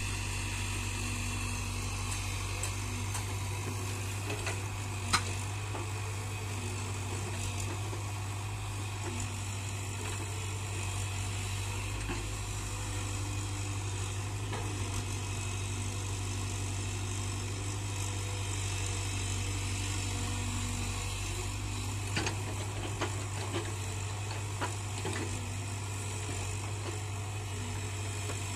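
Diesel engine of a JCB tracked excavator running at a steady speed while it digs and loads soil, a constant low drone. A sharp knock comes about five seconds in, and a few lighter clicks come near the end.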